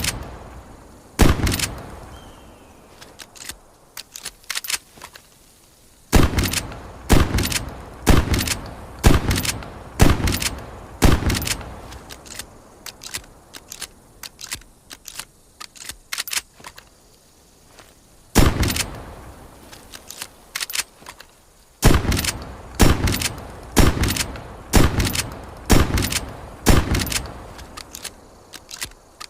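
.410 'Ironhide' shotgun firing repeatedly: one shot about a second in, then runs of shots about a second apart, each with a short ringing tail, with lighter mechanical clicks of the action between shots.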